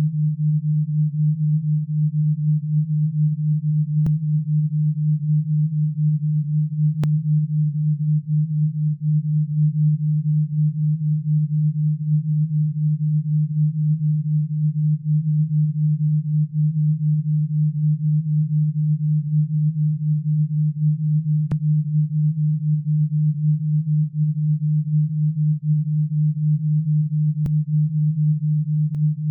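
Alpha-wave brainwave-entrainment tone for tinnitus relief: a steady low pure tone that pulses rapidly and evenly.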